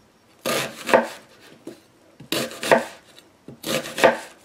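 Chef's knife slicing through half an onion onto a bamboo cutting board: three cuts about a second and a half apart, each a crisp crunch through the onion followed by the blade hitting the wooden board.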